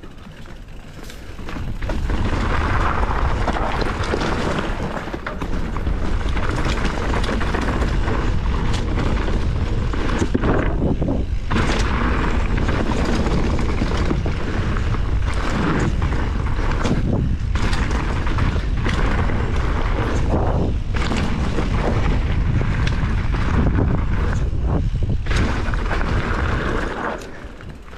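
Heavy wind buffeting on the microphone with a steady low rumble and many sharp knocks and rattles, as from a mountain bike ridden fast down a dirt jump trail. It starts about two seconds in and drops away near the end.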